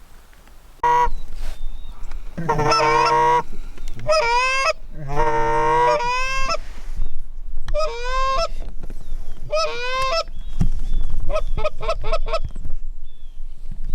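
Loud Canada goose honks and clucks starting about a second in: several drawn-out, cracking honks, then a fast run of short clucks near the end.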